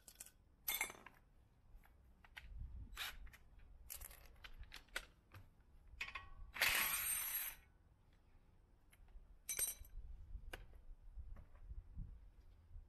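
Hand tools and metal brake parts being handled: a scattered series of light clicks, taps and clinks, with one loud noisy burst lasting about a second near the middle.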